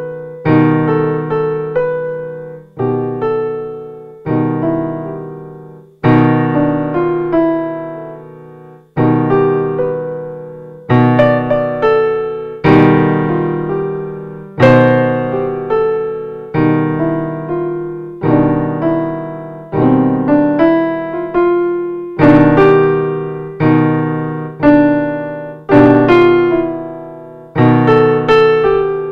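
Background music: a piano-type keyboard playing slow struck chords, each dying away before the next comes roughly every one and a half to two seconds.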